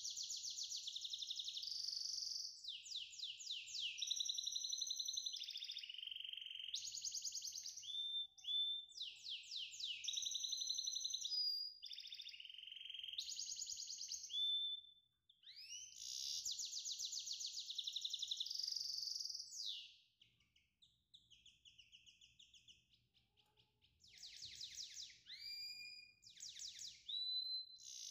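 A songbird singing a long, varied song of rapid trills, buzzy rolls and short rising whistles. It falls almost silent for a few seconds about two-thirds of the way through, then starts again.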